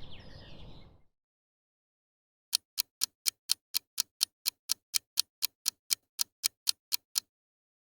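Clock-style ticking sound effect, a countdown timer for guessing: about twenty sharp, even ticks at roughly four a second, stopping abruptly. A brief, unclear noisy sound comes just before the ticking starts.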